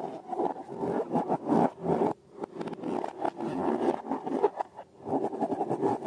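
Slime being worked and squished, a dense irregular sticky crackle with brief pauses about two seconds in and near five seconds.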